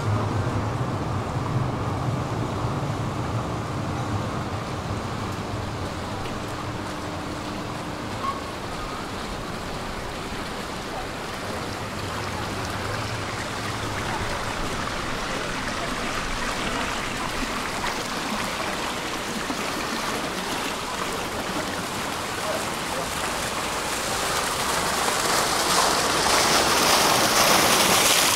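Fountain water splashing steadily into stone basins, growing louder near the end.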